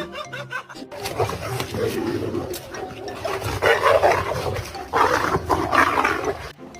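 A dog making long, rough vocal noises, loudest in three stretches of about a second each, cutting off abruptly near the end.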